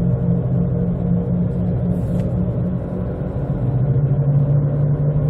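Jeep Compass wheel bearings humming and grinding while the car is driven: a steady low drone that drops slightly in pitch and grows louder about three and a half seconds in. The owner takes it for both wheel bearings worn out from the car sitting in storage.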